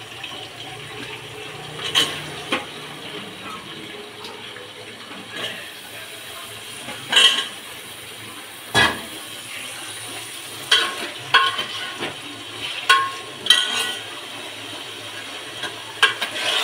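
Metal utensils clinking and knocking against a cooking pot, a dozen or so short, sharp clatters at uneven intervals over a steady low hiss.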